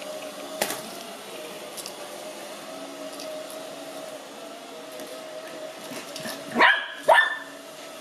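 Ecovacs Deebot robot vacuum running with a steady hum, and a Lhasa Apso puppy gives two short yaps, rising in pitch, near the end.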